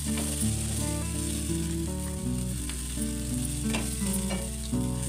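Onions, green chillies and tomatoes sizzling in ghee in a pan, stirred with a wooden spatula that scrapes the pan a few times. Background music with a steady bass plays underneath.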